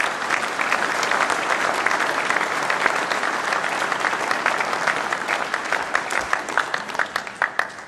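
Audience applauding: dense, steady clapping in a large hall, with single claps standing out more near the end before it stops abruptly.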